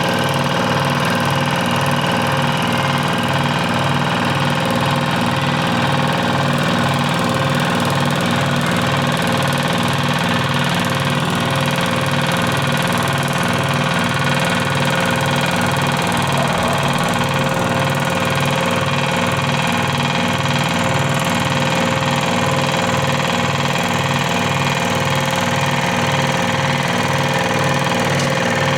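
Scroll saw running steadily: an even motor hum with a regular pulsing throb underneath.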